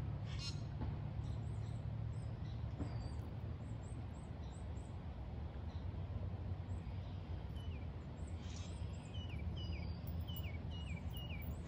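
Small birds chirping over the steady low rumble of a flowing river. Quick high chirps come through the first half, then a run of short falling calls about two to three a second from roughly the middle on.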